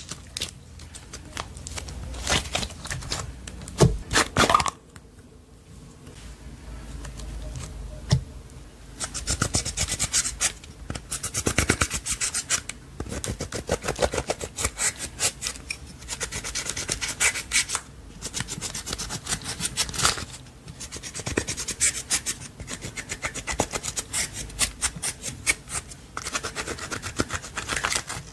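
Hands kneading and folding clear slime: rapid sticky clicks and crackles coming in bursts with short pauses, quieter for a few seconds about five seconds in.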